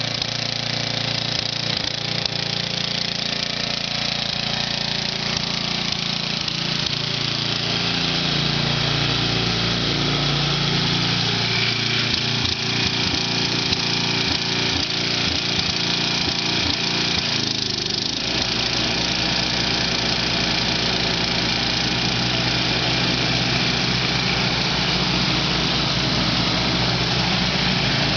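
Snapper rear-engine riding mower's 12.5 hp engine running steadily as the mower drives across the lawn. Its note shifts a few times, around ten seconds in and again near eighteen seconds.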